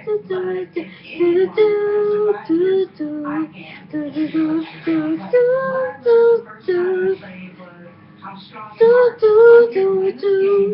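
A young girl's voice singing wordless held notes and vocal sounds, moving between pitches in short phrases.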